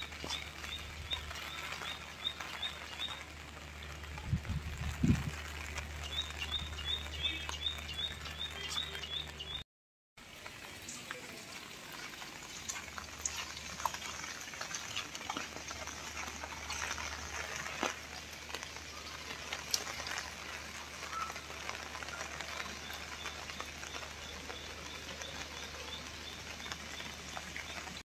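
Rain falling, with scattered drips and taps, and three short runs of rapid high chirps. A steady low hum sits under the first part, and the sound drops out briefly about ten seconds in.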